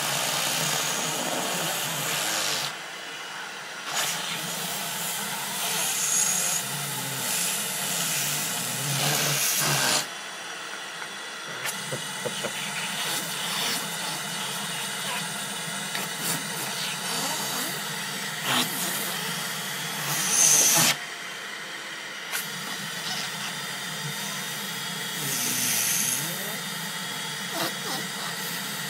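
Vacuum cleaner running with its hose nozzle held in a baby's mouth: a steady suction hiss that drops and surges in level several times as the mouth covers and uncovers the nozzle.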